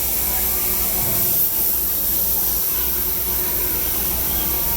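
Pod racer engine prop firing the roasting spits: a loud, steady hissing rush with a low hum underneath.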